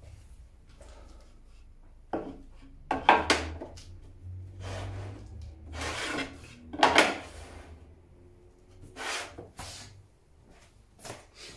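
Film-faced plywood pieces being handled and slid over a table saw's metal table: a string of scraping slides and knocks, the loudest about three seconds in and again near the middle.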